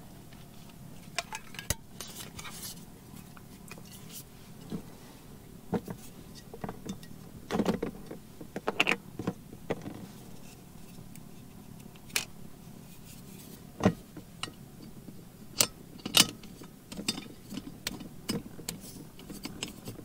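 Scattered clicks, clinks and rustles of a Jetboil camp stove being handled and set up: its cup, burner and gas fuel canister knocked together and screwed in place.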